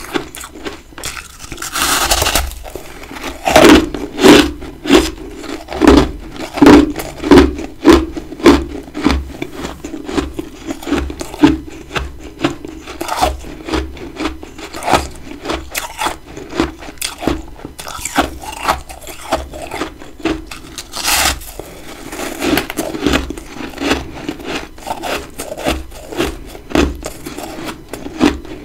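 A person biting and chewing big chunks of freezer frost close to the microphone: a run of loud, sharp crunches at roughly two a second, with longer crackling bites about two seconds in and again near the 21-second mark.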